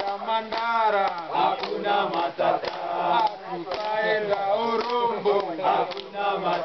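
A group of Tanzanian porters singing together, men's voices in chorus with no break.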